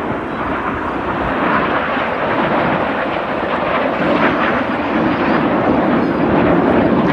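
Jet engine noise from a formation of BAE Hawk T1 jets with Rolls-Royce Turbomeca Adour turbofans flying past, growing steadily louder as they approach.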